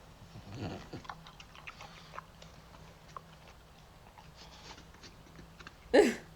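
A dog crunching and chewing a hard snack, with many small irregular crunches. About six seconds in comes one short, loud voiced cry, the loudest sound here.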